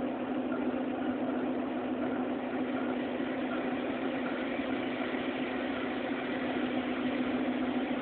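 ChME3 shunting locomotive's diesel engine running steadily: an even, unbroken hum.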